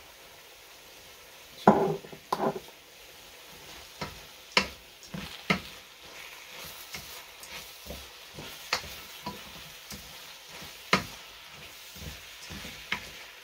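Wooden spoon stirring and scraping rice and vegetables in a metal sauté pan over a light sizzle, the rice being sautéed dry before the water goes in. Irregular knocks of the spoon against the pan, the loudest two close together about two seconds in.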